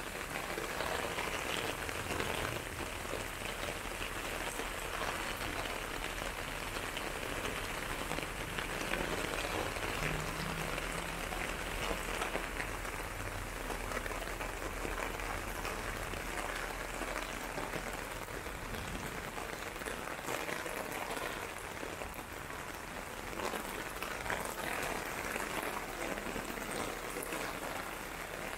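Steady rain falling, a dense hiss made of many small drop hits, holding even throughout.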